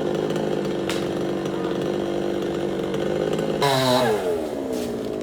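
Chainsaw engine running steadily; about three and a half seconds in its pitch jumps briefly and then falls away again.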